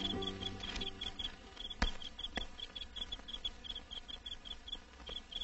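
Night-time cricket chirping: short high chirps in quick twos and threes, repeating steadily, as background music dies away at the start. A sharp knock comes near the two-second mark, with a softer one about half a second later.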